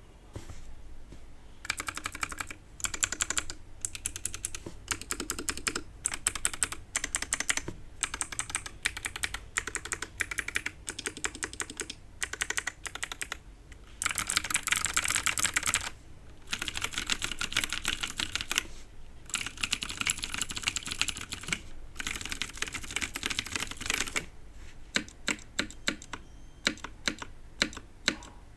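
Typing on a TX 60 mechanical keyboard with lubed, filmed clicky switches (Cherry Vintage Blue and Gateron Melodic) on an aluminium plate under GMK keycaps: fast runs of clicky keystrokes broken by short pauses, thinning to separate key presses near the end.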